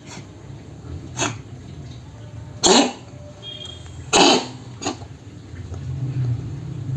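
Cat coughing: five short hacking coughs, the two loudest about three and four seconds in.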